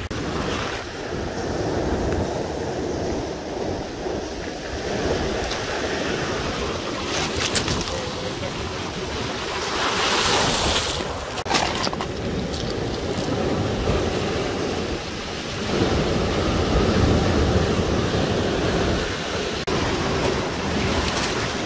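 Ocean waves breaking and washing over a cobble beach, with one wave crashing loudly onto the stones about ten seconds in.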